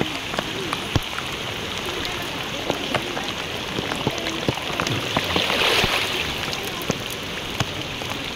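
Heavy typhoon rain falling steadily, with scattered sharp clicks of drops striking close by and a swell of louder hiss a little past the middle.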